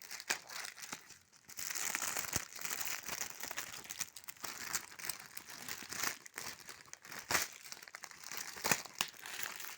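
Paper and packaging of a sticker book crinkling and rustling as it is handled and opened, with sharp crackles; the handling picks up about a second and a half in.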